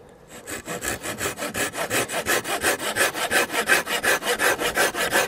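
Tajima G-Saw 240 folding saw, a Japanese pull-cut blade with triple-ground teeth, sawing through wood in quick, even strokes that start a moment in and keep a steady rhythm.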